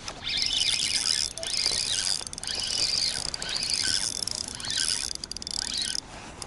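Spinning reel being cranked hard while a hooked asp is played in: a high whirring squeal that rises and falls with the cranking, in several spells with short breaks.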